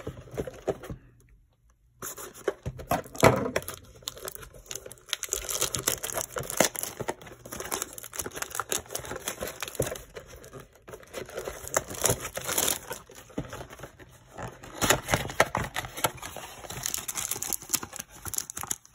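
Plastic shrink wrap crinkling and tearing as it is cut and peeled off a cardboard trading-card box, starting about two seconds in, with the box's cardboard flaps rustling near the end.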